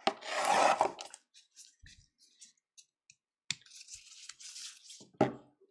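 Trading-card hanger pack's wrapping crinkling as it is handled and opened. A rustle lasts about a second at the start, a second rustle comes near the middle, and there are sharp clicks before it and near the end.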